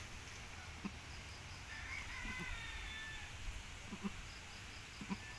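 A mother goat tending her newborn kid: a few soft, short low grunts spread through a quiet stretch, with a faint high call about two seconds in.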